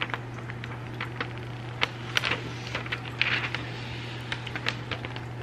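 Clear plastic screen-protector film being handled and pressed onto an iPad Pro's glass screen: scattered light clicks and crinkles, with a short rustle about three seconds in. A steady low hum runs underneath.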